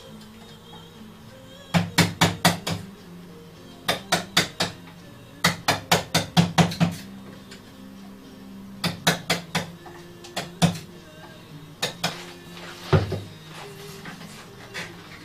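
Wooden mallet tapping a chisel into the wooden frame of a music box: quick runs of four to eight sharp knocks, about four a second, with short pauses between runs and a couple of single knocks later on.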